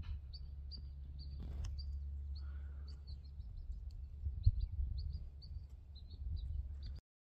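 Small birds chirping, many short high notes over a steady low rumble of background noise; the sound cuts off suddenly near the end.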